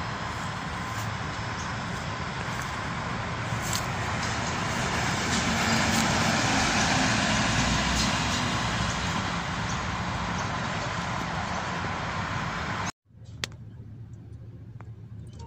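NR class diesel-electric locomotives running past: engine drone and wheels on the rails build up to a peak about halfway through and then ease off. Near the end the sound cuts abruptly to a quieter, more distant rumble of the train.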